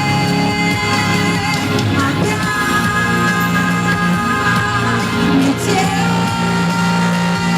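Pop ballad music with long held notes over a steady accompaniment, with singing in the mix but no clear lyric words.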